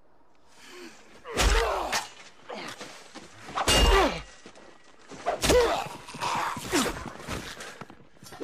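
Film sword-fight sound effects: three loud, heavy blows, about a second and a half, four and five and a half seconds in, each with a man's cry falling in pitch. Smaller clashes and thuds come between them.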